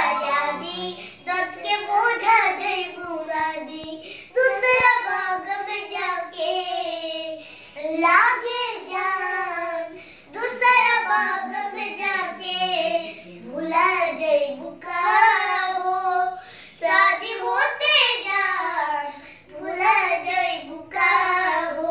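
Two young boys singing a song unaccompanied, in a string of phrases with short breaks between them.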